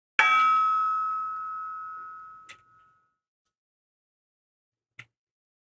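A metal book divider struck once, ringing with several steady tones, one high ring strongest, fading away over about two and a half seconds. The hit is hard enough to push the recorder's input toward clipping. Two faint clicks follow.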